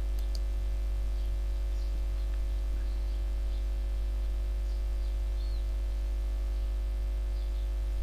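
Steady low electrical hum with a few faint steady tones above it, and now and then faint high chirps.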